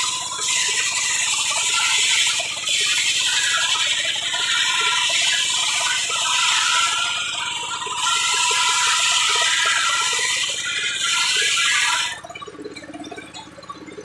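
Circular sawmill blade ripping lengthwise through a log: a loud, hissing cutting noise with a few brief dips. It stops about twelve seconds in as the blade clears the wood, leaving the belt-driven saw running freely at a lower level.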